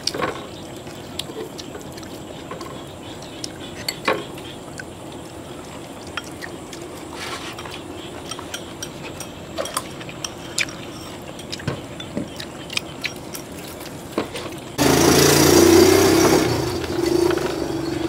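Chopsticks and spoons clinking and tapping against porcelain rice bowls during a meal, as scattered single clicks. About three seconds before the end a louder, rough noise starts abruptly and then eases off.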